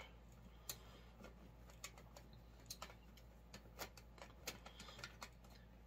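Faint, irregular light clicks of metal tweezers working against a plastic cassette shell and hub as the tape is wound up, over a low steady hum.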